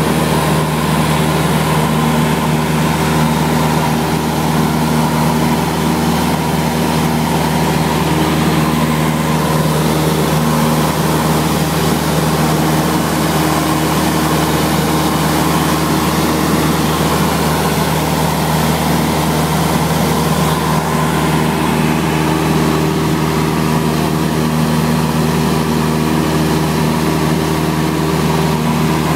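Light aircraft's engine and propeller droning steadily in flight, heard inside the cabin.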